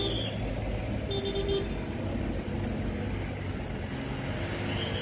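Road traffic: vehicle engines running with a steady low rumble, and short horn toots, one about a second in and another near the end.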